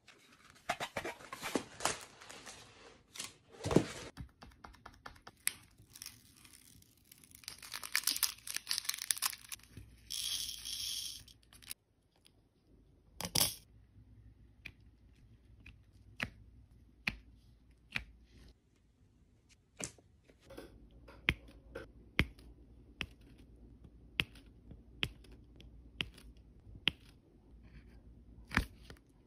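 Diamond-painting sounds: dense crinkling and rustling of plastic for the first half. Then a drill pen presses resin drills onto the sticky canvas, one small click at a time, roughly once a second.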